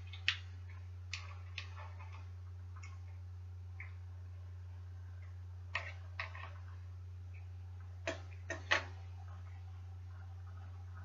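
Scattered sharp clicks and taps of tools and metal bike parts being handled while working on a bicycle stem, about ten in all, with the loudest a quick cluster of three near the end, over a steady low hum.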